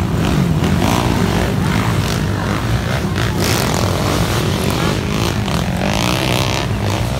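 Several underbone racing motorcycles revving hard on a dirt motocross track. Their engine pitch rises and falls as the riders work the throttle.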